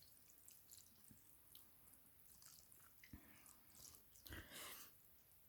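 Near silence with faint eating sounds: small wet mouth clicks while chewing noodles, and a brief louder wet sound about four seconds in.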